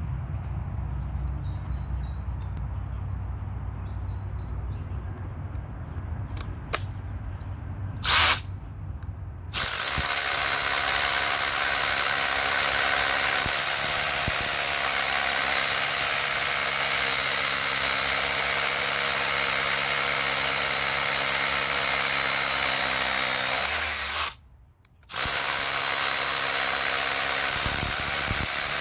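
Worcraft CRH-S20LiT 20V cordless rotary hammer drilling into a concrete slab: after a brief burst about eight seconds in, it runs loud and steady, cuts out for under a second near the end, then drills on.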